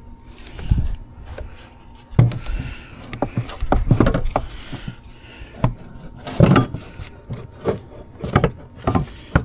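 Irregular plastic knocks, clicks and rubbing of an engine air box being handled and worked back into place in the engine bay, with louder knocks about two, four and six and a half seconds in.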